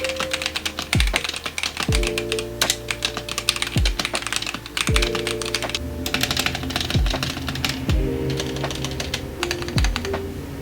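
Fast, continuous typing on a computer keyboard, many key clicks a second, over background music with a kick drum about once a second.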